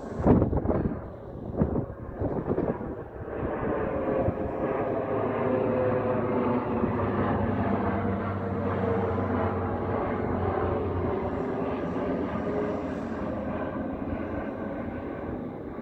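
Saab 2000 turboprop passing low overhead on approach, its two Rolls-Royce AE 2100 turboprops with six-bladed propellers making a steady drone with a propeller hum. A few loud thumps come in the first three seconds.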